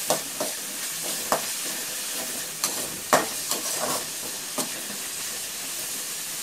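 Mint paste, onions and peanuts sizzling in oil in a wide metal pan while a spatula stirs and scrapes the pan, clacking against it several times. The mint is being fried until its raw smell goes.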